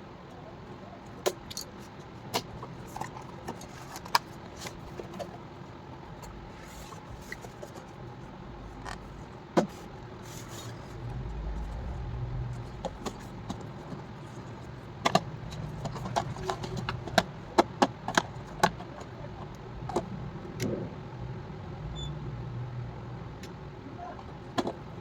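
Scattered clicks and taps from hands handling a headphone box and its packaging, denser about two-thirds of the way through, over a low rumble that swells twice.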